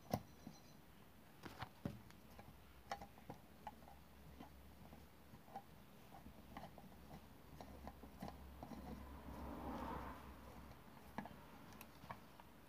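Faint, scattered clicks and taps of a screwdriver turning the screws that hold a new stator in a motorcycle's alternator cover, with a sharper click at the very start and a second or so of rubbing about nine seconds in.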